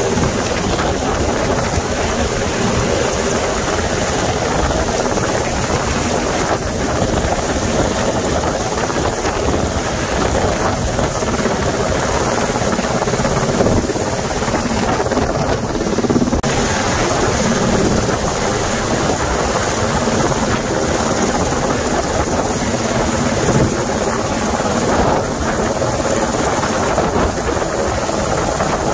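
UH-60M Black Hawk helicopter hovering close by during a hoist rescue: loud, steady rotor and turbine noise that holds at one level throughout.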